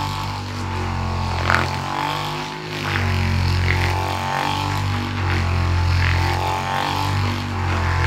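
Handheld percussion massage gun running while pressed against a person's upper back: a steady low motor hum whose level dips briefly about three times.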